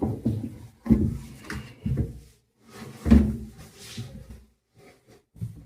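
A few knocks and thumps with scraping against the plastic body of a semi-automatic washing machine's spin dryer, as a piece of clothing jammed in it is worked loose by hand.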